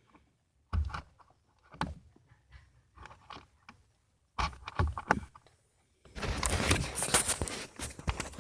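Hand-tool work on the last blower-motor bolt: scattered metallic clicks and knocks, then about six seconds in a couple of seconds of quick clicking and rattling, typical of a socket ratchet working the bolt loose.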